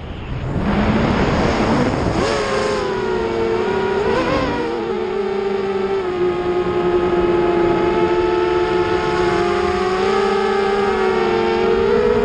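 Brushless motors and propellers of an Eachine Wizard X220 FPV racing quadcopter whining in flight. The pitch dips at the start, climbs within the first two seconds, wavers about four seconds in, then holds steady and rises again near the end as the throttle changes.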